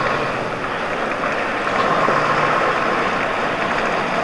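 Scania 143 truck's V8 diesel engine running at low speed as the truck manoeuvres slowly, mixed with a steady rushing hiss.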